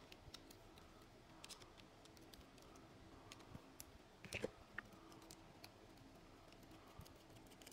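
Very faint, scattered small clicks and ticks of a precision screwdriver working a screw in a Shimano Miravel spinning reel's body as the reel is handled, with a slightly louder cluster of clicks a little over four seconds in.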